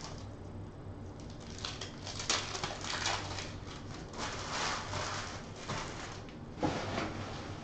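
Trading-card pack wrappers crinkling and tearing as packs are opened by hand, in a run of short irregular rustles, with a single knock near the end.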